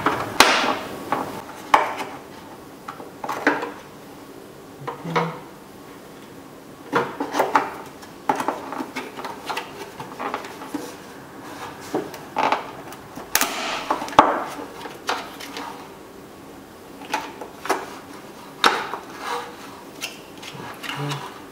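Hard plastic clicking and knocking at irregular intervals as a Chrysler Pacifica tail light assembly is handled and its bulb sockets are twisted and locked into the housing, with some rattle from the wiring harness.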